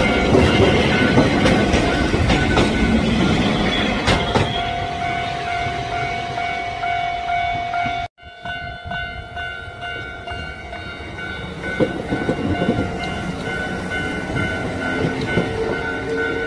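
Electric trains passing a level crossing, their wheels clattering over the rail joints while the crossing's electronic bell rings steadily. The audio cuts off suddenly about eight seconds in. After that the bell rings on and a red-and-white Kintetsu train's wheel clatter builds again.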